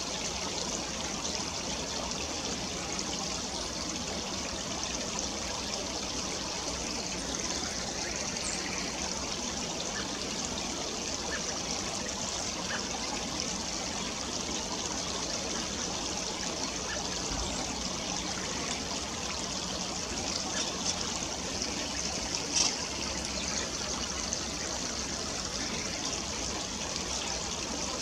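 Shallow stream trickling steadily over rocks, with one brief sharp high sound about two-thirds of the way through.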